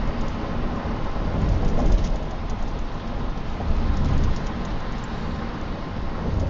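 Steady rumble and hiss of a car on the move, heard from inside the cabin through the dashcam's microphone.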